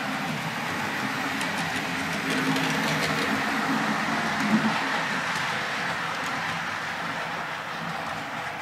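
HO-scale model train running past on the layout track: a steady whirring hum of the locomotive's electric motor and the metal wheels on the rails. It grows louder as the train comes closer, then eases off as the coaches pass, with a single sharp click about four and a half seconds in.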